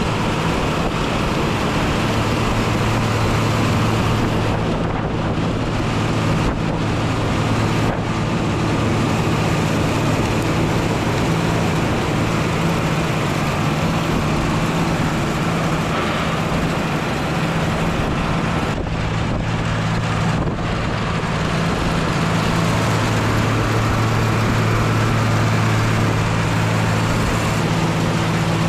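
Farm tractor engine running steadily, its even drone overlaid with a broad rushing noise.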